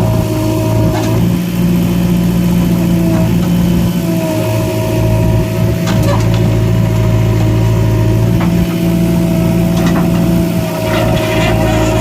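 Heavy diesel engine running steadily, its note swelling and easing a little, with a steady high whine above it and a few sharp knocks.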